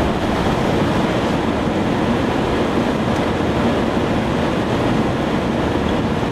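Steady loud rushing noise of strong wind around the storm chaser's vehicle, with a deep low rumble and no breaks or distinct events.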